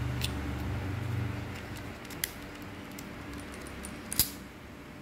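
Daiwa T3 SV baitcasting reel being cranked and handled: a low whir of the gears and spool turning in the first second and a half, then light metallic ticks with a sharp click about two seconds in and a louder one near the end. The reel runs smooth and quiet.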